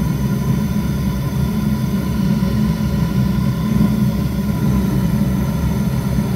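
1997 Zhukovsky gas-fired heating boiler's burner running with the gas valve fully open: a steady, loud low rumble of the flame.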